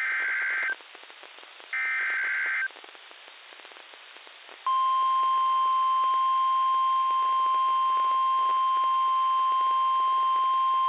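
Two short bursts of SAME digital header data, the screeching warble of an Emergency Alert System message encoding a severe thunderstorm warning, each just under a second, with radio hiss between. About two seconds later the steady 1050 Hz NOAA Weather Radio warning alarm tone starts and holds.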